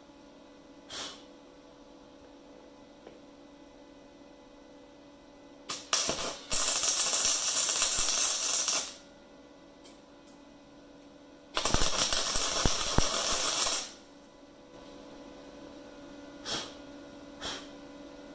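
MIG welder running two bursts of welding crackle, each two to three seconds long, laying weld onto a nylock nut. A few light clicks come between the bursts.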